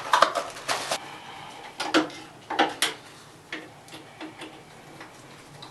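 Scattered clicks and knocks of hand tools and parts being handled at an oil burner: a quick cluster in the first second, then a few single ones spread out and growing fainter.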